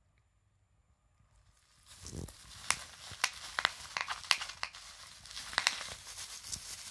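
Plastic bubble wrap crinkling and crackling with many sharp clicks as a dog pushes its muzzle into it and worries it, starting about two seconds in.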